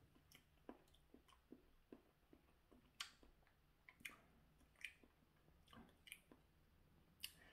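Faint chewing of a mouthful of scrambled eggs: soft, irregular mouth clicks about two a second.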